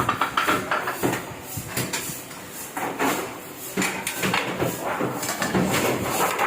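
Heidelberg offset printing press running, with continuous mechanical clatter and a stream of sharp clicks and knocks that surge unevenly.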